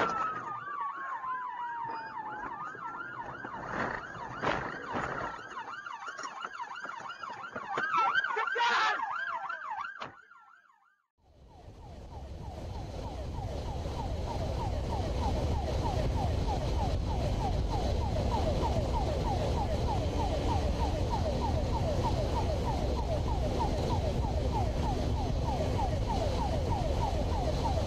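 Police car siren wailing up and down, with a few loud knocks, fading out about ten seconds in. After a moment's near silence a motorcycle engine and road noise run steadily.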